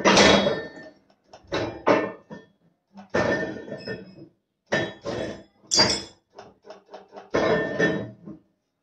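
Metal clanks and clinks with a brief ringing from a clip-making machine for strapping seals, its mechanism turned over by hand to press the first clip from steel strip. They come in a string of separate knocks with short gaps, the loudest at the very start.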